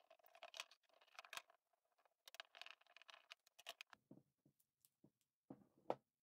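Hands taking steel F-clamps off a wooden bending form and separating the form, giving a run of short scrapes and rattles. Then come a few duller knocks of wood handled on the bench, and a sharp knock near the end.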